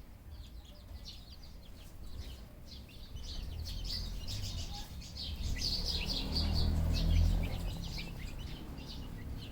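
Many small birds chirping in quick, high, overlapping calls, with a low rumble that swells about six to seven seconds in.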